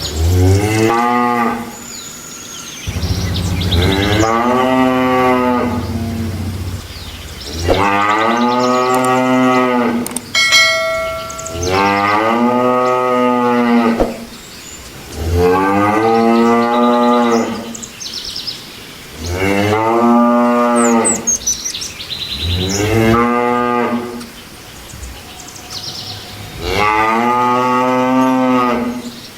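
Cattle mooing repeatedly, with about eight long moos a few seconds apart, each rising and then falling in pitch. A short, steady ringing tone sounds once about ten seconds in.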